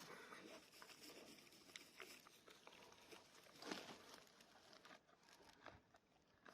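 A horse grazing: faint, scattered crunching and tearing as it pulls up grass and chews it, with a slightly louder crunch about three and a half seconds in.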